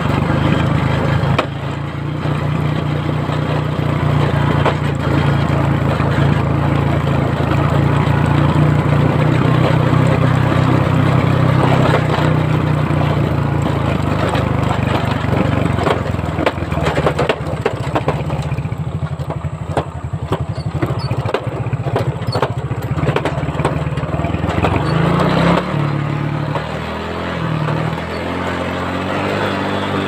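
Small motorcycle engine running steadily under way. In the second half many short knocks and rattles break in as the bike jolts over the rough dirt track, and near the end the engine's pitch shifts in steps.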